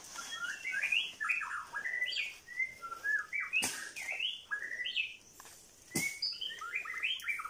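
Forest birds chirping: continuous runs of short, high chirping notes. Two sharp clicks cut through, about three and a half and six seconds in.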